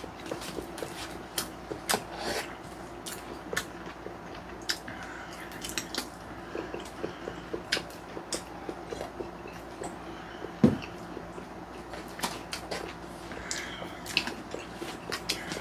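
Mukbang eating sounds: chewing and mouth noises with light clicks of a spoon and chopsticks against plastic take-out containers, as stir-fried pork over rice (jeyuk deopbap) and kimchi sundae are eaten. There is one sharp knock about ten seconds in, over a faint steady hum.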